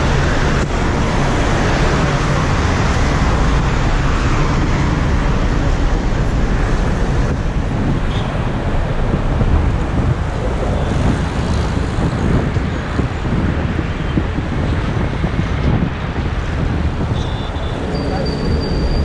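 Bus on the move in city traffic: steady engine and road noise with wind, heard from on board. A brief high-pitched tone near the end.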